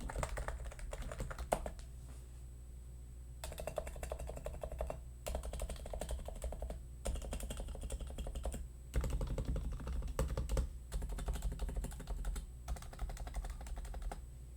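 Typing on a Topre Realforce R3S TKL keyboard, its Topre capacitive rubber-dome switches clacking in quick runs of a second or two, broken by short pauses.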